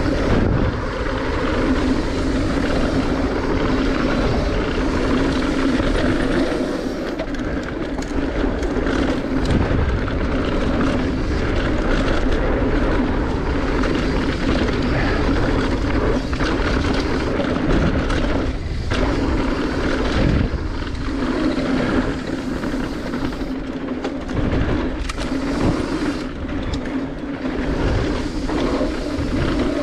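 Wind rushing over a camera microphone during a downhill mountain bike run, with bike tyres rumbling over the dirt trail: a steady, loud rushing noise with a low hum.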